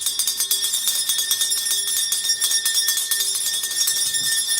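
Bells shaken and rung without a break: a fast, steady jingling with a few clear ringing tones held above it.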